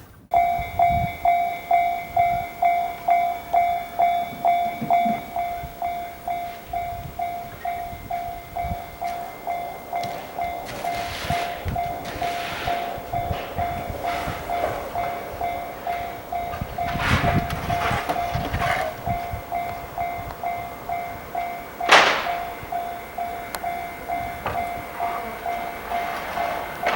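A Japanese level crossing's electronic warning bell ringing steadily at about two strikes a second, while an E353 series limited express train rumbles and clatters past the crossing. A single sharp crack stands out late on.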